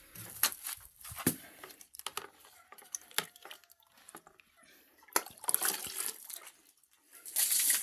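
Water being thrown and splashed to wash out a room: irregular splashes and drips, with longer rushing pours about five seconds in and again near the end.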